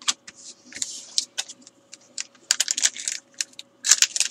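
Foil trading-card pack wrapper crinkling and tearing as fingers work it open: a run of irregular dry crackles and clicks, busiest in the second half.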